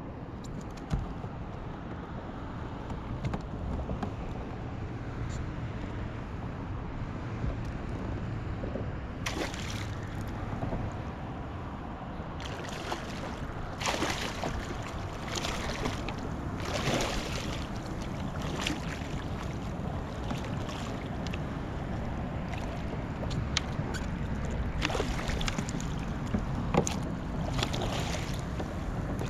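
Water sloshing around a kayak with wind on the microphone. From about nine seconds in come repeated sharp splashes and knocks against the hull.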